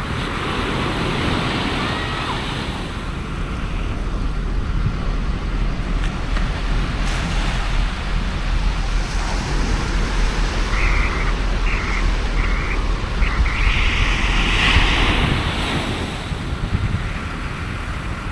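Surf breaking and washing up the beach, with wind buffeting the microphone in a steady low rumble. The wash of the waves swells near the start and again a few seconds before the end.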